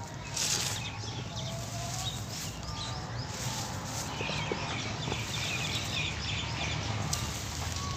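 Dry sand-cement mix crumbling and trickling through bare fingers in a dusty stream, a gritty rustle with a louder rush of grains about half a second in.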